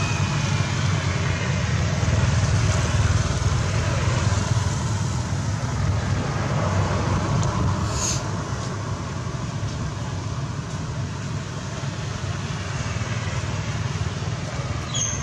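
Steady outdoor background noise with a low rumble, a little softer in the second half, and a short sharp high sound about eight seconds in.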